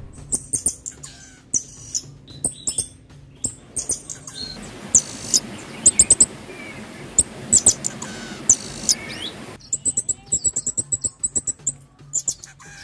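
Pin-tailed parrotfinch calling: a series of short, high chirps, coming in a quick run near the end.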